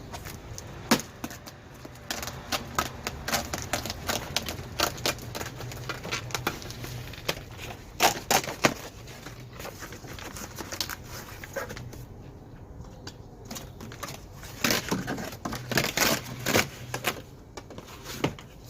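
Sound-insulation sheet being peeled off the inside of a car door: a long run of irregular crackles, rips and clicks, easing off for a couple of seconds past the middle before starting up again.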